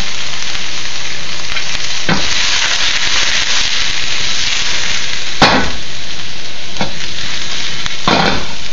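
Minced garlic and ginger sizzling loudly in hot sesame oil in a wok, a steady frying hiss. Four short sharp clacks break it, the loudest about halfway through.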